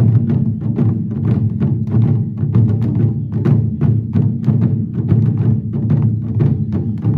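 A taiko ensemble beating barrel-shaped nagado-daiko drums with wooden bachi sticks in a steady, fast rhythm of several strokes a second, each stroke a low drum-head boom.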